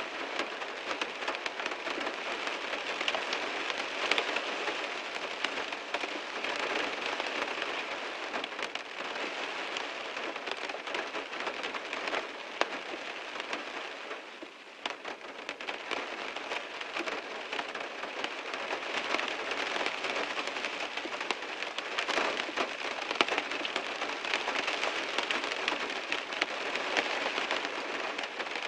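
Heavy rain falling on a car, a dense steady patter of drops that eases briefly about halfway through before picking up again.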